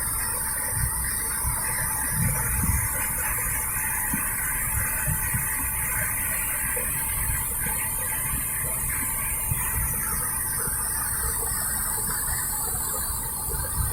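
Steady rushing hiss of a waterfall, with uneven low rumble from wind buffeting the microphone.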